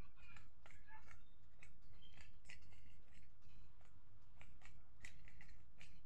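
3x3 Rubik's cube being turned by hand: quick, irregular plastic clicks and clacks as the layers snap round, several a second, over a steady low hum.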